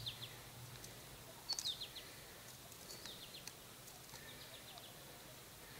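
A small bird chirping: three short runs of quick, high, falling notes, the loudest about a second and a half in, over faint outdoor background noise.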